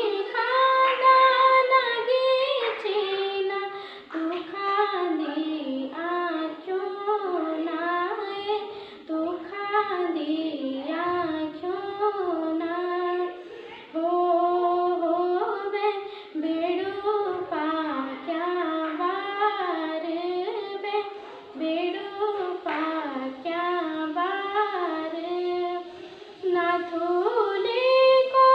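A young girl singing a song solo, unaccompanied, in a high voice with held, gliding notes, phrase by phrase with short breaks for breath.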